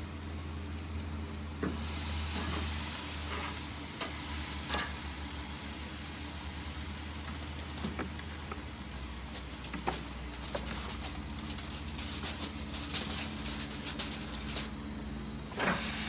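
Steak and ribs sizzling on the grate of a charcoal grill over gray coals, a steady hiss that grows louder about two seconds in, with scattered sharp clicks.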